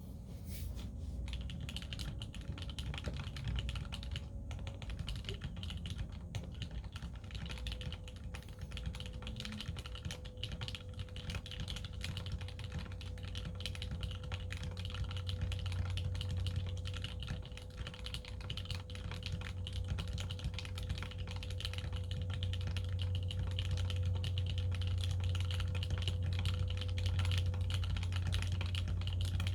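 Custom 65% mechanical keyboard with Gateron Yellow linear switches lubed with Krytox 206, in an aluminium case with an aluminium plate, being typed on continuously: a dense run of keystroke clacks. A steady low hum lies under it.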